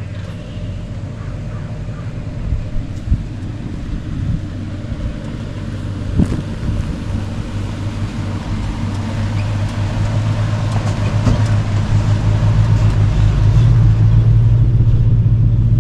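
Truck engine running steadily, getting louder in the second half, with a few sharp knocks and clunks in the first half.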